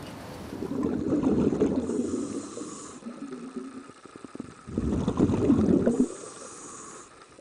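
Scuba diver breathing through a regulator underwater: two breaths, each a bubbling rumble with a high hiss coming in toward its end.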